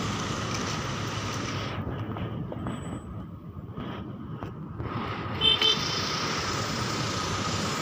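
Roadside traffic noise from slow-moving cars and vans, a steady rushing hum that dips a little in the middle. A brief high-pitched tone sounds about five and a half seconds in.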